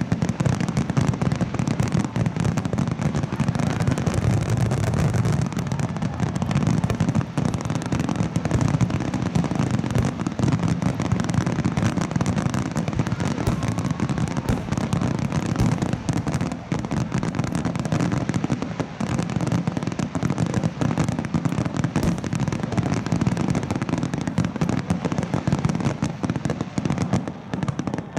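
Fireworks finale: a dense, unbroken barrage of aerial shell bursts, deep booms overlapping one another with crackle between them.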